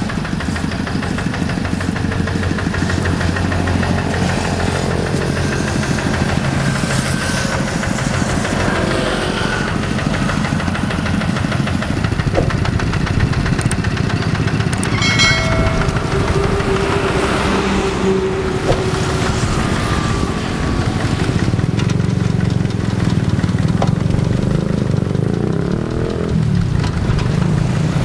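Single-cylinder Yanmar diesel engine of a Quick G1000 walking hand tractor running steadily under load while it plows a flooded rice paddy.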